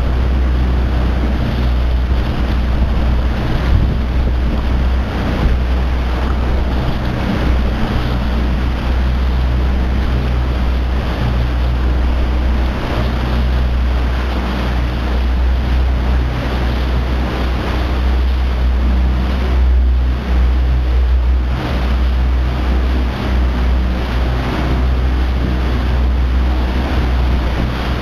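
Johnson 40 outboard motor on a small dory running steadily, with water sloshing around the hull and wind noise on the microphone.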